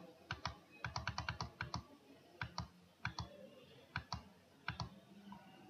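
Clicking at a computer: short, sharp clicks in small groups of two or three, with a quicker run of about ten between one and two seconds in.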